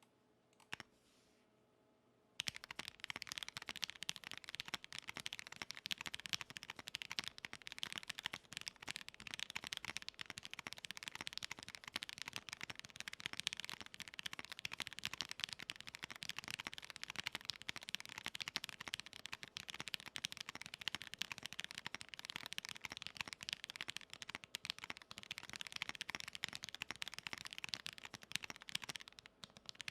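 Typing on a Zoom65 EE mechanical keyboard with broken-in, lubed and filmed Cherry MX Black linear switches on an aluminum plate and PBT keycaps: a fast, continuous run of keystroke clacks that starts about two seconds in.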